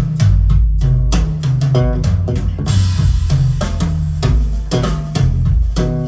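Band music with drum kit, bass guitar and guitar, played back through JBL Studio 630 bookshelf speakers with a subwoofer, heavy in the bass. A cymbal crash rings out near the middle.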